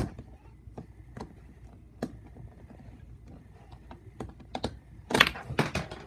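Plastic megaminx pieces clicking and knocking as they are handled and pushed while trying to fit the last piece into the puzzle, with a quick run of louder clicks about five seconds in.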